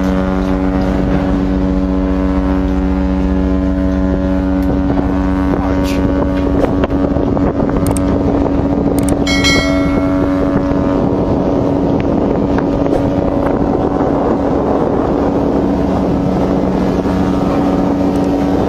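Ship's horn sounding one long, unbroken blast, two steady low tones with the lower one fading out for a while in the middle, over heavy wind noise on the microphone.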